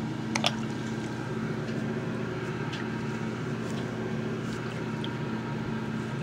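A steady low mechanical hum with a faint hiss, with a couple of light clicks about half a second in.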